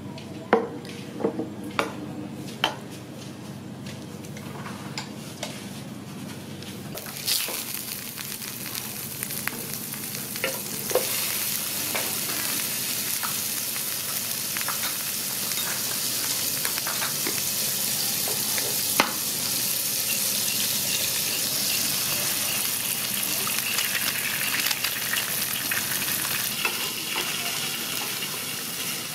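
A few light knocks, then about seven seconds in, an egg frying in hot oil inside a bell pepper ring starts to sizzle steadily with occasional crackles.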